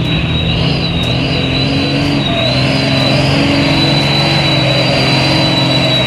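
Heavy diesel tanker truck engine running under load as the truck crawls through deep mud, with a steady high-pitched whine over the engine note.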